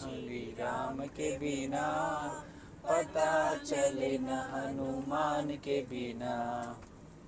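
People singing a Hindu devotional bhajan, with sung phrases that rise and fall and short breaths between them.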